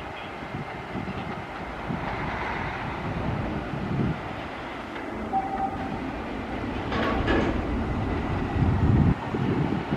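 TEM2 shunting diesel locomotive running light, its six-cylinder PD1M diesel engine running with a low rumble while its wheels knock over the rail joints and switches. It grows louder as it approaches, with a brief sharp metallic sound about seven seconds in.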